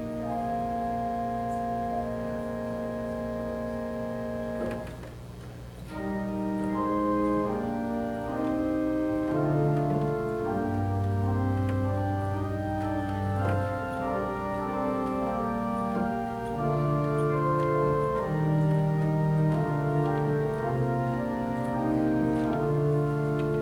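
Church organ playing: a held chord that releases about five seconds in, then after a short pause a moving passage of sustained notes over low pedal bass notes.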